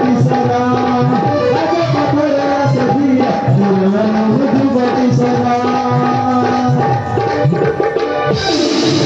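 Dance music: a melody of long held notes over quick drumming. A bright, hissing layer joins near the end.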